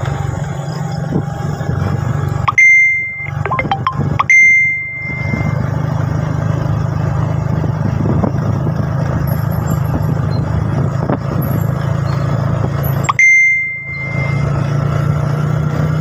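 Motorcycle engine running steadily at riding speed with wind and road noise. Three loud bell-like dings cut in over it, about two and a half seconds in, about four seconds in and near the end, each fading within a second.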